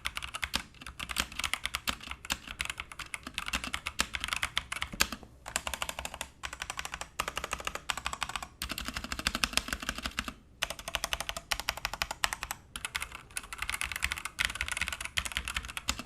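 Fast typing on an EZBoard 61t mechanical keyboard with TnT Pink switches: dense runs of keystroke clacks broken by short pauses of about half a second.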